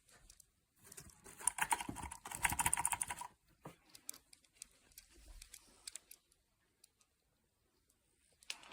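Rapid keyboard typing, a dense run of key clicks for about two seconds, then scattered taps that die away around the middle.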